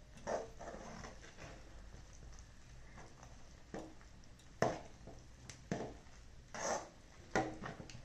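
Steel ladle stirring thick, stiffening rice-flour dough in a metal kadai: short scraping and squishing strokes with several sharp clacks of the ladle against the pan, the loudest about halfway through.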